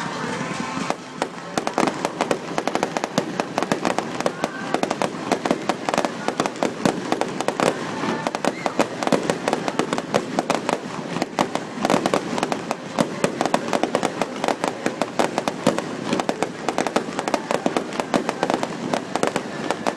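Fireworks going off in a rapid, continuous barrage of bangs and crackles, many bursts a second with no pause.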